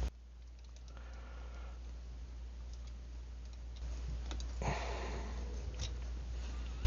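Faint clicks and short, soft scraping sounds of small metal hand tools being handled over a low steady hum.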